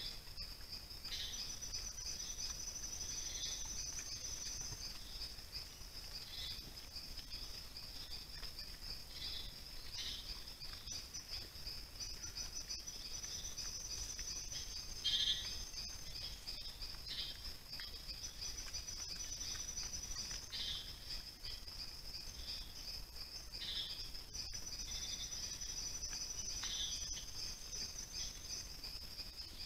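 Forest insects chirring steadily in a fast pulsing trill, with a second, higher insect song starting and stopping several times. Short sounds break in at intervals, the loudest a brief one about halfway through.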